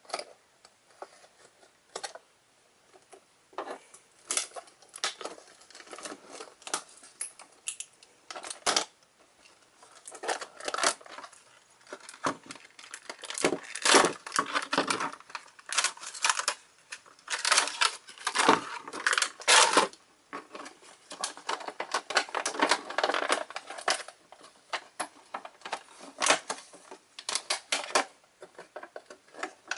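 A toy's cardboard and clear plastic packaging being opened by hand: irregular clicks, tearing and plastic crinkling, sparse at first and busier from about a third of the way in.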